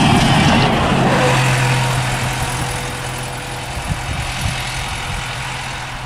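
Volvo B5LH hybrid double-decker bus driving close past and away along a concrete guided busway. Its sound fades as it goes, with a steady low hum under the tyre noise.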